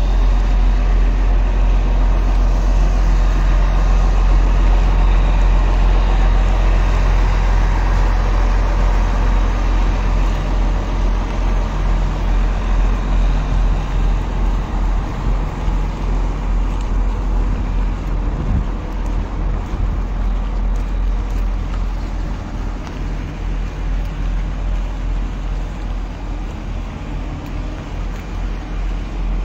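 Steady low rumble of a tour coach's engine idling, slowly getting quieter through the second half.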